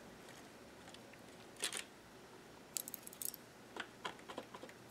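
Faint handling sounds of a latch tool working among the needles of a 3D-printed circular sock knitting machine: a short rustle just under two seconds in, then scattered light clicks.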